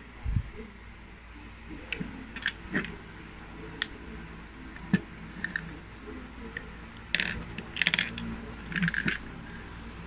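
Plastic Lego parts of a home-built candy machine clicking and clacking as its mechanism is worked by hand: scattered single clicks, then a few short rattling clatters about seven to nine seconds in.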